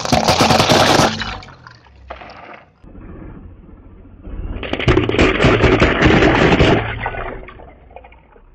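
Car tyre rolling over a row of LED light bulbs and crushing them one after another: a loud burst of cracking and crunching for about a second at the start, then, a few seconds later, a longer run of rapid pops and crunches lasting about two seconds.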